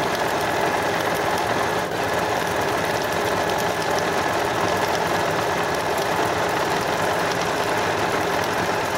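Janome DC 4030 computerized sewing machine running steadily, its needle stitching a dense decorative satin-stitch pattern stretched to five times its normal length.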